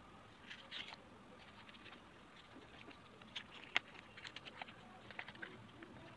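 Folded paper and thin card handled on a wooden tabletop: faint rustling with scattered light clicks and taps as a paper piece is pressed into a small paper matchbox tray. One sharper click a little past halfway is the loudest sound.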